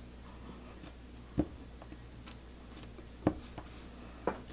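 A small round clay cutter is pressed through a sheet of polymer clay onto a hard work surface, making a few short, soft clicks, three of them clearer than the rest.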